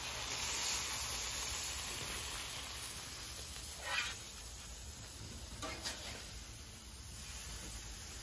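Hamburger steaks sizzling on a Camp Chef flat top griddle as metal spatulas lift them off, the sizzle easing after the first few seconds. There are a couple of brief scrapes, about halfway through and again a couple of seconds later.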